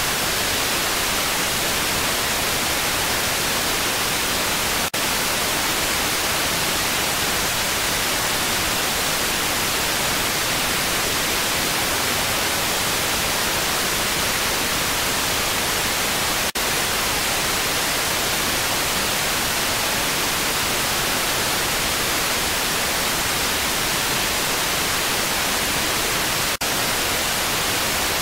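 Steady static hiss, even and unchanging, with no voices or crowd standing out of it; it drops out for an instant three times.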